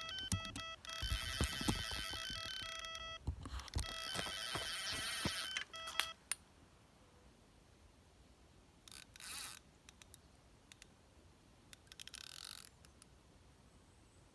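Electronic carp bite alarm sounding in fast continuous beeps, the sign of a fish taking line on a run. It breaks off briefly twice and stops about six seconds in, leaving only a couple of short rustles.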